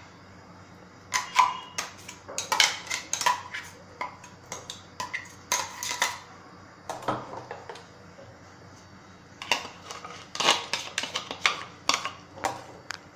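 Metal spoon clinking and scraping against a steel cup and a glass bowl in irregular runs of quick taps, as a ground nut-and-spice paste is scraped out and stirred into milk.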